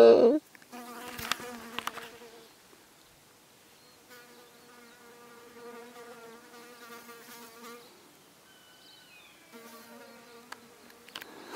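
An insect buzzing close by in three stretches, a faint steady drone that comes and goes. At the very start a loud, held call cuts off.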